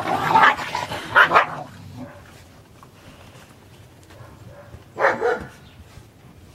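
German shepherd puppies barking in play: several quick barks in the first second and a half, then one more bark about five seconds in.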